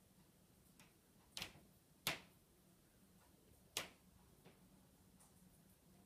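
Sharp bangs from the upstairs apartment heard through the ceiling: three loud knocks about a second and a half, two and nearly four seconds in, the second the loudest, with a couple of fainter taps between them in an otherwise quiet room.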